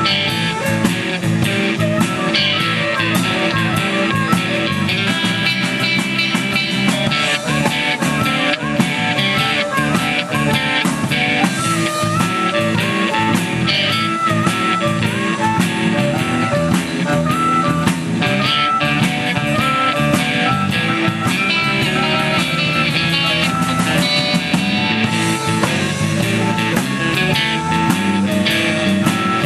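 Live electric blues band playing: a harmonica cupped to the microphone carries the lead over electric guitar, bass guitar and drum kit.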